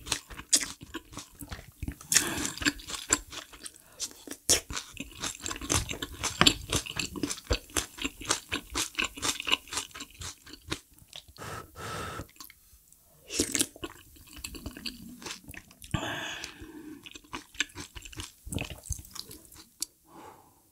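A person chewing food close to the microphone, with crunching and wet mouth clicks at an irregular rhythm, pausing briefly about midway.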